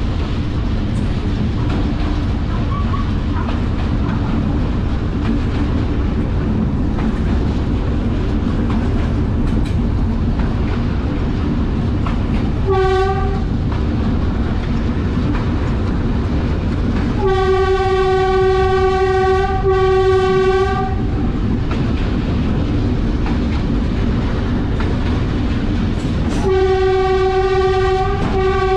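GE D10E-250 diesel locomotive sounding its one-note horn: a short blast about 13 seconds in, a long blast broken once near 20 seconds, and another long blast near the end, over the steady rumble of the engine and the wheels on the rails.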